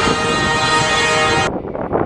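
Steady multi-tone drone of a C-130 Hercules's turboprop engines on a flyby, cut off abruptly about one and a half seconds in by the rough rumble of jet engines.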